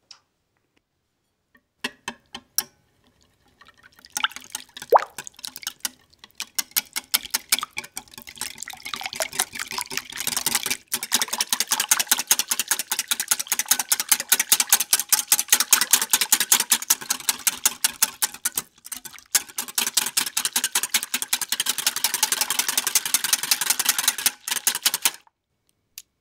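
Wire whisk beating an egg yolk mixture in a glass bowl: fast, even wet clicking of the wires against the glass. A few taps come first, then steady rapid whisking with one short break about three quarters through, stopping just before the end.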